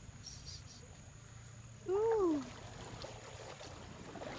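A person's single drawn-out "ooh", rising and then falling in pitch, about two seconds in, over a steady low background rumble.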